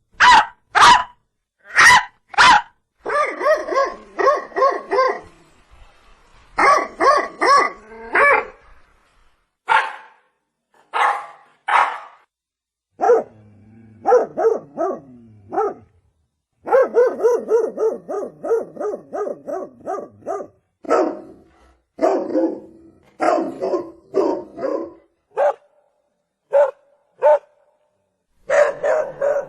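Dog barking repeatedly, in groups of barks with short pauses between, some groups coming in quick runs of about four barks a second.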